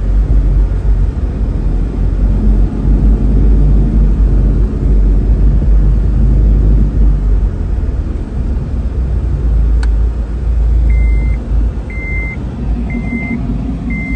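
Deep, loud exhaust rumble of a lifted GMC Sierra 1500 pickup driving slowly past and pulling alongside, heard through the glass from inside another car. Near the end a short high electronic beep repeats about once a second.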